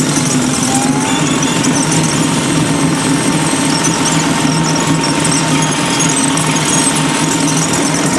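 A vehicle engine running at a steady speed: a constant low hum with an even hiss over it.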